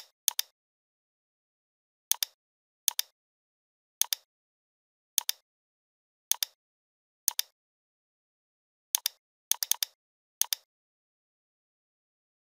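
Computer mouse clicks, each a quick press-and-release pair. About ten come at uneven intervals, with two in quick succession about three-quarters of the way in, and dead silence between them.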